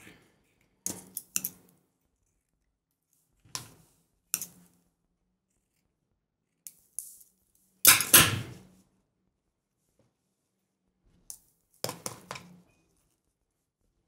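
Scissors snipping satin ribbon, heard as a handful of short, separate snips and clicks with quiet gaps between, plus a louder, longer handling noise about eight seconds in.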